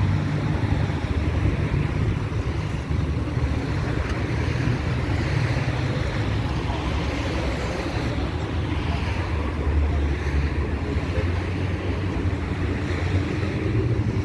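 Steady road traffic noise, with wind rumbling on the microphone.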